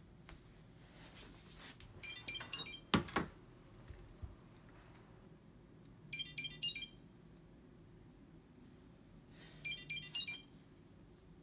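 Mobile phone ringing: a short burst of high ringtone notes comes three times, about four seconds apart, with a low buzz under the later two. A single sharp knock about three seconds in is the loudest sound.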